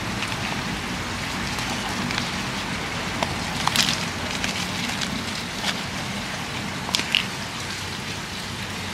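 Loose potting soil being tipped from a black plastic nursery pot onto a potted plant, with a few short crackling taps about four and seven seconds in, over a steady rain-like hiss.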